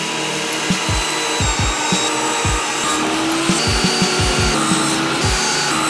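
Table saw ripping the corners off a glued-up mahogany blank with its blade tilted to 45 degrees, a steady cutting noise. Background music with a steady low beat plays underneath.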